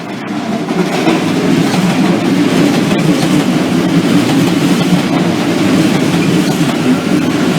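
A Hanshin electric train on the Sanyo Electric Railway line passing at close range. Its wheels and running gear make a steady, loud rail noise that builds in over the first second and then holds.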